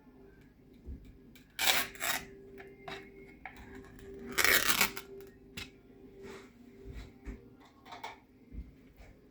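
Kitchen handling noise: two short bursts, about a second and a half in and again about four and a half seconds in, with scattered small clicks, over a faint steady hum.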